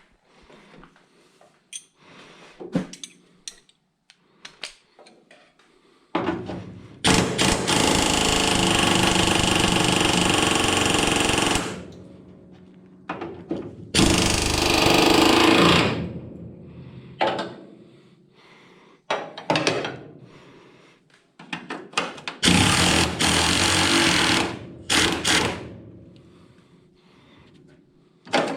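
A power tool running in three bursts of several seconds each, with small metal clinks and knocks between the bursts.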